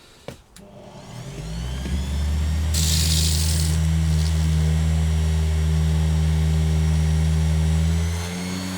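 A power tool motor switched on, winding up over about a second and then running steadily, with a short hissing grind about three seconds in as a laminate plug is sanded to a taper. Near the end the level drops and the pitch shifts.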